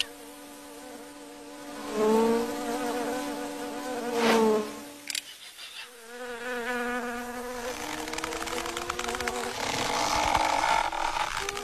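Flying insects buzzing, a cartoon sound effect. A steady wing buzz swells louder twice as it passes, about two and four seconds in. In the second half a buzz climbs slowly in pitch.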